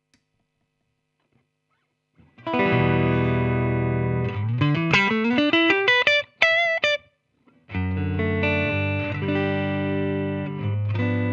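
Electric guitar played through the AmS Hurricane 20 combo amplifier. After about two seconds of silence a chord rings out, followed by a quick rising run of single notes, then a short break and another sustained chord.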